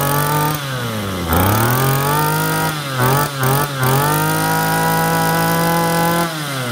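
Small two-stroke brush cutter engine revved up and down under the throttle. It is held high, drops back about half a second in, climbs again, gets several quick blips about three seconds in, then is held high before falling back near the end.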